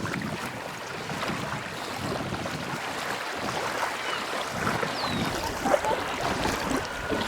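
Water sloshing and lapping around an inflatable kayak on a lake, an uneven watery noise.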